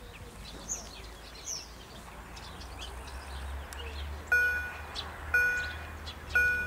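Birds chirping, then about four seconds in a level-crossing warning bell starts ringing, struck about once a second, three times here, each strike ringing out with a clear, bell-like tone.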